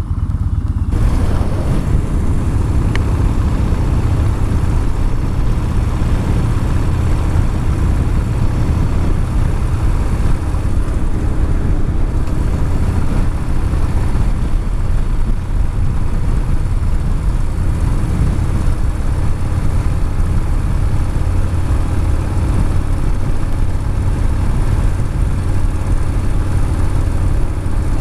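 Yamaha Bolt XV950R's air-cooled V-twin running steadily while the motorcycle is ridden, with wind noise on the microphone that swells about a second in and stays.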